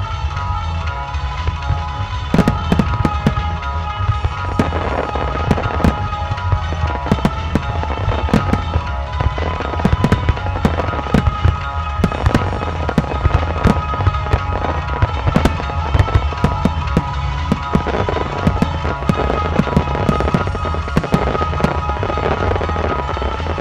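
Japanese aerial firework shells bursting in a rapid barrage, with many sharp bangs and crackles every second, over background music with steady held tones.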